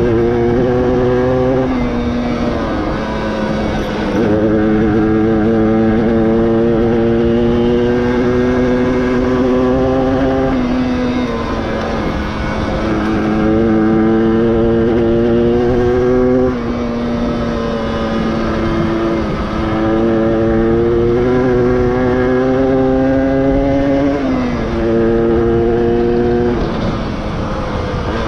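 1994 Yamaha DT125R's stock two-stroke single-cylinder engine running under load while riding. Its pitch climbs slowly and then falls back sharply every few seconds, about seven times.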